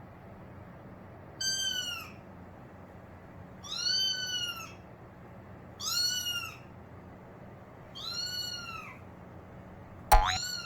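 Cat meowing over and over, one short rising-and-falling meow about every two seconds. About ten seconds in, a brief sharp sound is louder than the meows.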